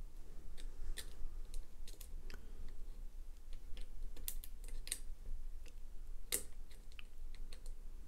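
Lock pick working the pins inside a small brass desk lock cylinder held under tension: faint, irregular clicks and ticks, with a sharper click about six seconds in.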